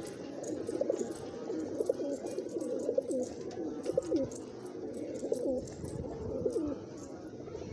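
A flock of Kasni pigeons cooing, several birds calling over one another, busiest through the middle and easing off near the end.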